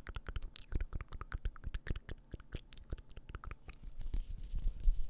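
Close-miked ASMR mouth sounds: rapid wet clicks and smacks of the lips and tongue. Near the end they give way to a louder low rumble with a faint hiss.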